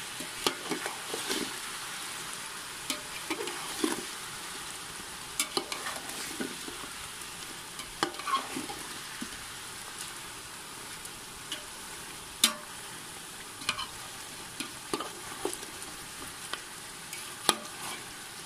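Chicken pieces frying in oil with a steady sizzle as they are fried down with green chili, ginger and garlic paste, while a slotted metal spoon stirs them and clinks and scrapes against the metal pot at irregular moments.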